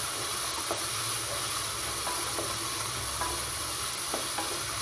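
Chopped onion, carrot, beans and green chilli sizzling in hot oil in an aluminium pot, stirred and scraped with a wooden spatula. The frying makes a steady high hiss.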